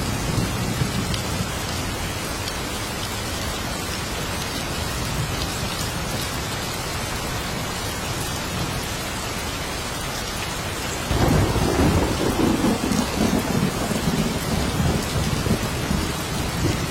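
Steady rain hissing down in a thunderstorm. A low rumble of thunder fades out in the first second, and a new roll of thunder breaks in suddenly about two-thirds of the way through and rumbles on to the end.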